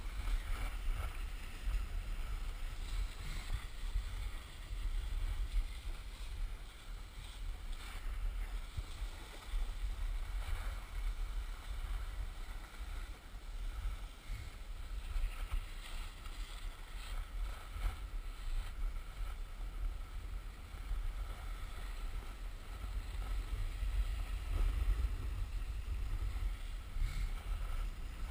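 Wind buffeting a GoPro's microphone during a ski run, a steady low rumble, with the hiss of skis sliding over packed snow.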